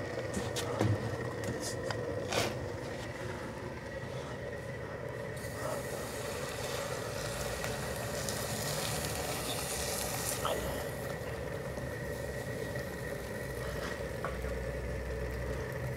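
Molten zinc being ladled into a spelter socket, with a few light metallic clinks of the steel ladle in the first few seconds over a steady machine hum.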